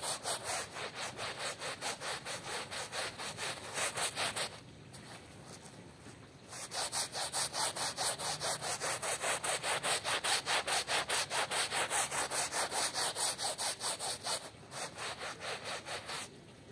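Stiff hand brush scrubbing a wet, soapy carpet in quick back-and-forth strokes, about five a second. The scrubbing pauses for about two seconds a little over four seconds in, resumes, and stops shortly before the end.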